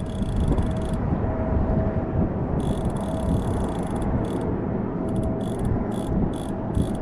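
Strong wind buffeting the microphone with a heavy, uneven rumble. Over it, short bursts of fine high-pitched clicking or buzzing come and go, more often in the second half.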